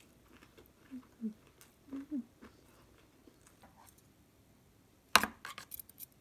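Metal chopsticks clicking against a plastic food container, a quick cluster of sharp taps about five seconds in. Before that come a few soft eating sounds.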